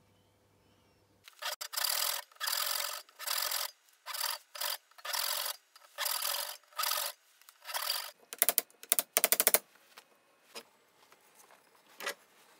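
Handsaw cutting into a wooden handle blank clamped in a vise, about a dozen back-and-forth strokes of roughly half a second each, followed by a run of quicker, shorter strokes about two-thirds of the way through.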